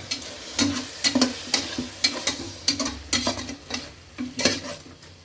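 A spatula stirring and scraping a masala of onion, tomato and ginger-garlic paste in hot oil in the base of a pressure cooker, about two to three strokes a second, over a light sizzle.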